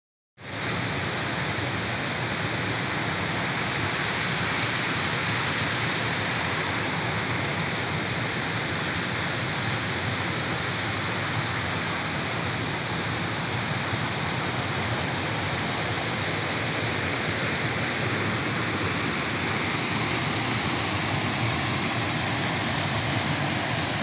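Small waterfall spilling over stepped rock ledges into a forest stream: a steady rush of falling and flowing water.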